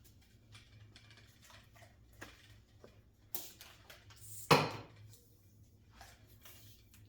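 Workshop handling clatter: tools and metal motor parts being picked up and set down, with scattered light clicks, a sharp knock about three seconds in and a louder clunk about a second later.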